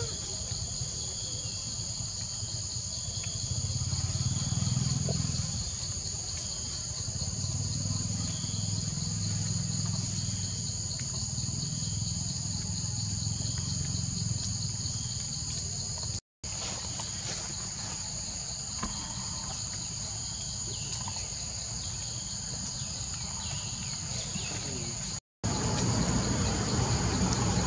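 Steady, high-pitched drone of an insect chorus, with a low rumble underneath; the sound drops out for a moment twice.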